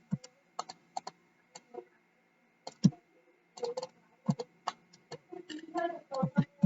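Typing on a computer keyboard: irregular keystrokes in short runs with brief pauses, the runs coming faster in the second half.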